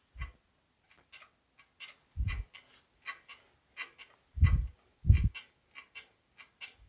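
A sheet-metal fender panel being run through an English wheel to stretch it: scattered light clicks and ticks, with a few short low thumps as the panel is moved between the wheels.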